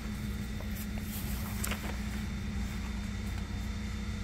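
Steady low drone of an idling engine, even in level throughout, with a faint click or two about a second and a half in.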